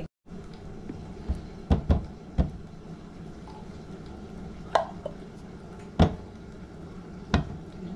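A silicone spatula scrapes thick creamy filling out of an opened can into a plastic mixing bowl, with several sharp knocks as it taps against the can and bowl, the loudest about six seconds in. A steady low hum runs underneath.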